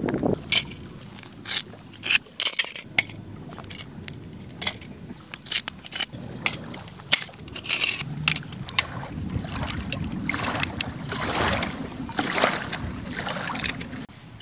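Handling of a die-cast toy tractor model and its rubber tyres on gravel: scattered sharp clicks and knocks with scraping and crunching of gravel, denser in the second half.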